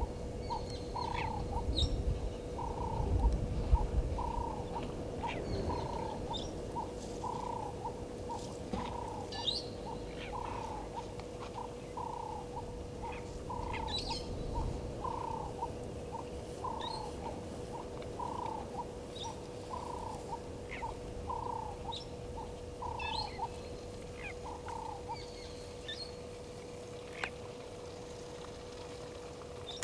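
Outdoor bush ambience: a short call repeated steadily about once a second, stopping a few seconds before the end, with scattered higher bird chirps and a constant low hum underneath. A low rumble is strongest in the first few seconds.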